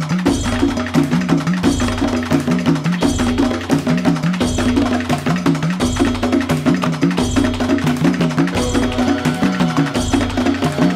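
Dance music for a tribal dance, with a steady percussion beat and a low melodic phrase that repeats about every second and a half.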